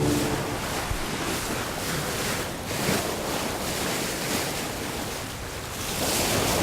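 Sea waves rushing and wind blowing aboard a sailing ship under way, the noise swelling and easing in long surges.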